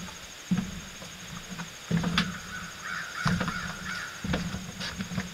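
A bird calling with harsh, rough calls a little past the middle, amid a series of dull knocks about once a second.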